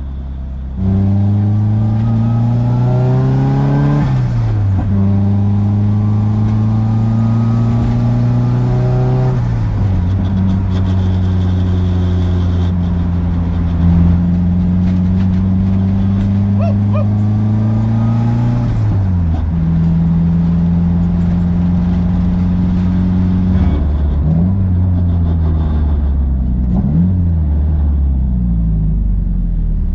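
Nissan SR20DET turbocharged inline-four pulling away and accelerating through the gears. The pitch rises, drops at a shift about 4 seconds in, rises again, and drops at a second shift near 10 seconds. It then holds a steady cruise, and near the end comes a series of short rises and falls in pitch.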